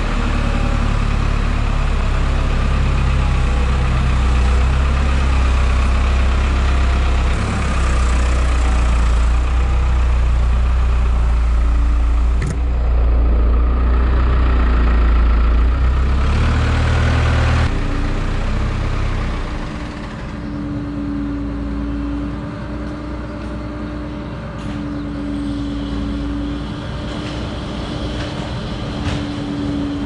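Farm telehandler's diesel engine running, a loud low drone. About 18 seconds in the sound drops, and a humming tone comes and goes from then on.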